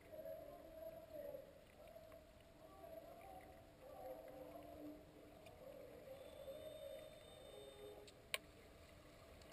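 Faint, muffled underwater ambience of a swimming pool picked up by a submerged camera: a low wavering hum, with one sharp click about eight seconds in.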